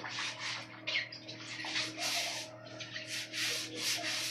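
Hands scrubbing and rubbing something in water: a run of irregular, rough swishing strokes.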